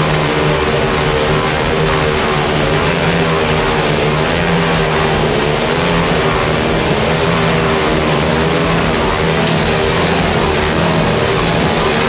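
Rock background music with electric guitar, steady throughout.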